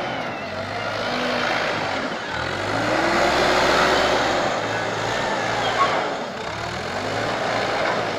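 Bobcat TL470 telehandler's diesel engine working under load, revving up and down twice with a rising and falling whine as it drives and manoeuvres into a manure heap, with a single clank about six seconds in.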